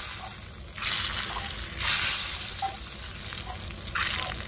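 Hot oil tempering of cumin, garlic, dried red chillies and curry leaves sizzling as it is spooned onto cooked toor daal. The hiss comes in bursts, strongest about a second in and again near the end.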